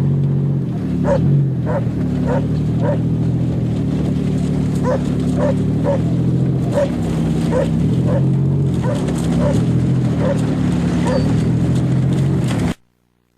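A dog barking repeatedly over the running of a Buick 3.8 V6 engine, whose pitch rises and falls a little. The sound cuts out abruptly near the end.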